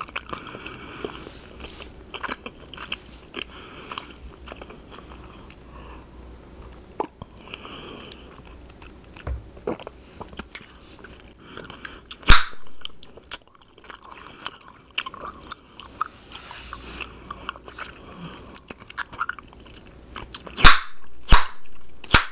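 Close-miked bubble gum chewing, a wad of three pieces, with wet clicking and smacking throughout. A loud sharp gum pop about twelve seconds in, and a quick run of loud pops near the end.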